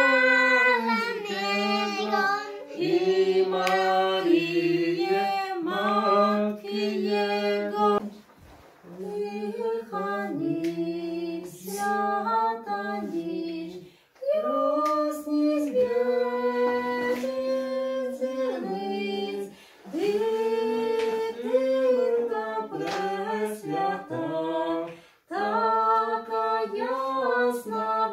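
A woman and a man singing a Christmas carol unaccompanied, in sung phrases broken by short pauses about every five to six seconds.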